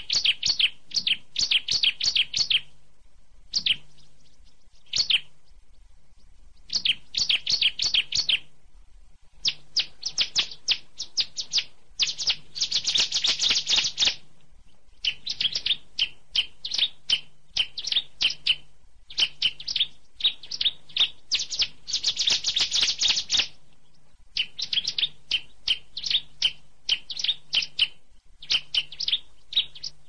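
A small songbird of the ciblek (prinia) kind singing in chattering phrases of quick, repeated high notes. Each phrase lasts one to three seconds, with brief pauses between. Two longer, denser trilling runs come near the middle and about two-thirds of the way through.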